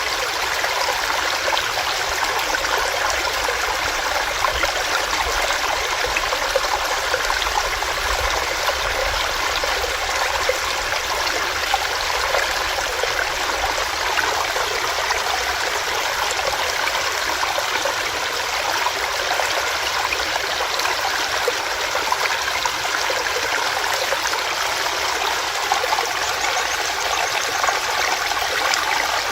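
Small rocky stream running steadily over stones, a continuous rushing splash with fine bubbling flickers throughout.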